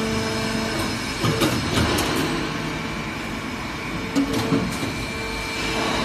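Nylon cable tie injection molding machine running with a steady drone, with clunks and knocks about a second in and again about four seconds in as the mold opens and closes in its cycle.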